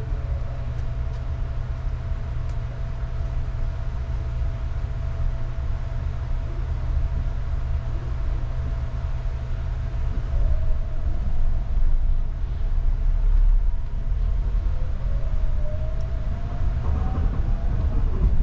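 Sunrise Izumo sleeper train, a 285 series electric train, pulling out of the station, heard from inside its compartment: a steady low rumble that grows louder about halfway through. In the last few seconds a motor whine rises in pitch as it gathers speed.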